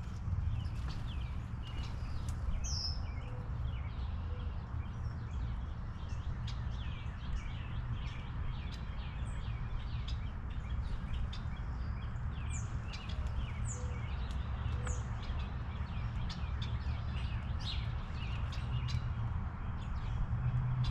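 Small birds chirping in short, high calls, scattered through the whole stretch, with sharp clicks and taps in between, over a steady low rumble.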